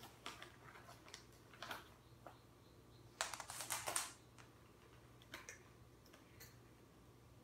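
Calico cat crunching dry treats off the kitchen floor: faint, scattered crisp clicks, with a denser run of crunching about three seconds in that lasts about a second.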